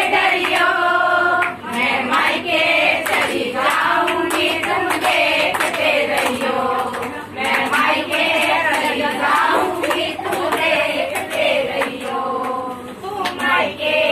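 A group of women singing a Marwari comedy wedding song (vivah geet) together in chorus, with hand clapping along.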